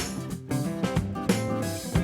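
Background music: an upbeat rock-style track with guitar and a steady drum beat.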